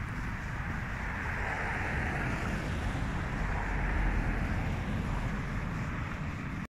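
Steady wind noise on the microphone outdoors in the snow: a low rumble under an even hiss. It cuts off suddenly near the end.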